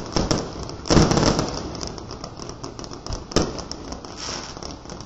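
Fireworks crackling and popping rapidly, with a louder bang about a second in and another a little past the middle.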